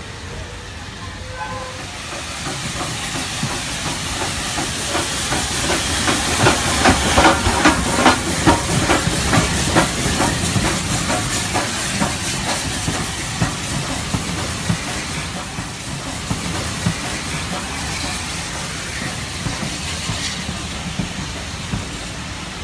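Model steam train running past on a model railway: a steady steam hiss with a quick, even beat of chuffs or wheel clicks, about three a second. It grows louder to a peak about a third of the way through, then eases off.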